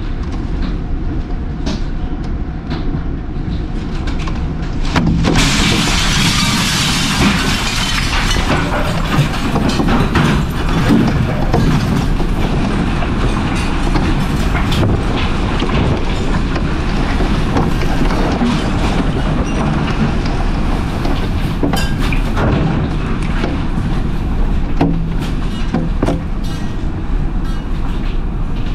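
Tornado wind heard from inside the house: a loud, unbroken rush that grows louder and harsher about five seconds in, with many sharp knocks of flying debris striking the walls and window.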